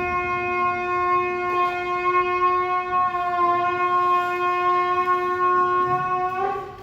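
Shofar (ram's-horn trumpet) sounding one long, steady blast that rises slightly in pitch just before it cuts off near the end.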